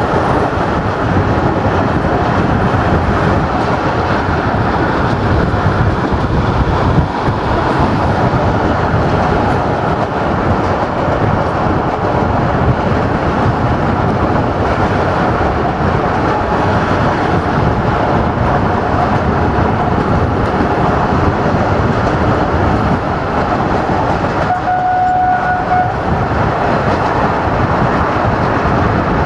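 Passenger train running at speed, heard through an open carriage window: a steady rumble of wheels on rail mixed with rushing air. About twenty-five seconds in, a short steady tone from the train's horn sounds for about a second and a half.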